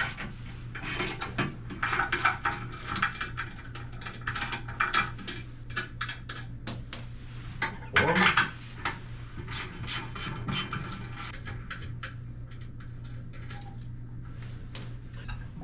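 Clicking, knocking and rubbing of hand tools, bolts and porcelain as a toilet tank is unbolted and lifted off the bowl, with a louder scrape or clatter about eight seconds in. A steady low hum runs underneath.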